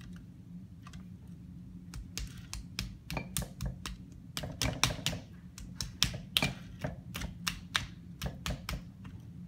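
Hands patting and slapping a solid lump of clay: an irregular run of sharp slaps, two or three a second, starting about two seconds in.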